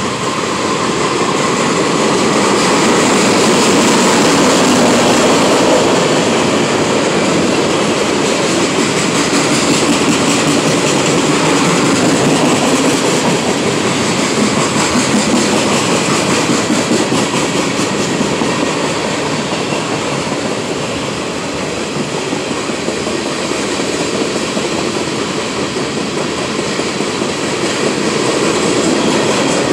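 Freight train cars (tank cars, boxcars and covered hoppers) rolling past at speed: a steady, loud rumble and rattle of steel wheels on the rails, swelling and easing slightly as the cars go by.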